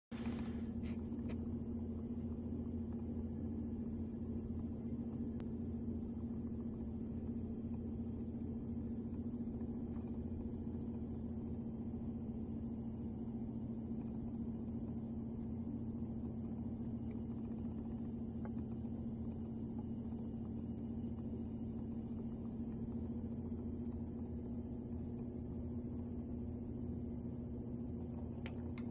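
Steady electrical hum with a strong low pitched tone, unchanging throughout, with a faint click near the end.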